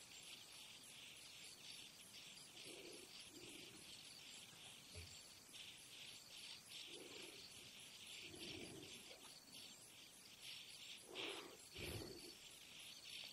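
Faint insect chorus: a steady, rapidly pulsing chirping. Two soft low sounds come near the end.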